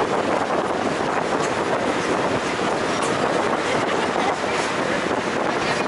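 Steady running noise inside a moving light rail car: wheels rumbling on the track together with the car's own noise, with a few faint clicks.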